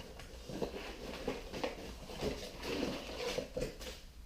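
Press parts and their packaging being handled on a workbench: irregular soft rustling with light knocks and taps.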